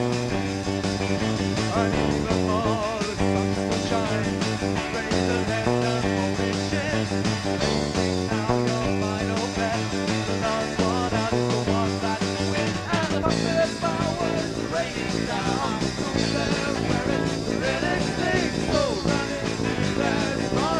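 Local rock band playing a song live, with guitar and a repeating bass line between sung verses; the recording is rough.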